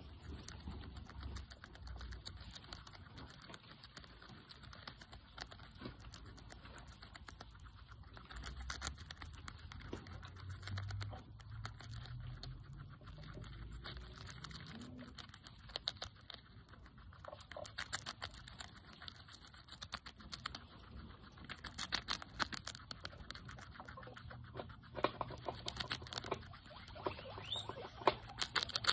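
Guinea pig chewing a lettuce leaf close up: rapid, crisp crunching and nibbling clicks, with louder flurries of bites every few seconds.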